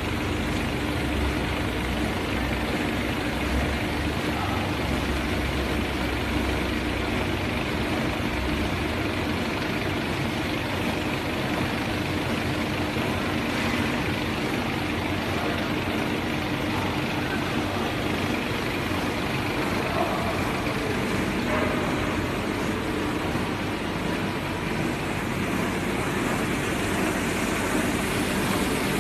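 Industrial A4 paper sheeting machine running steadily, feeding paper from the roll through its slitting wheels and cutting it into sheets: an even mechanical noise with a steady low hum.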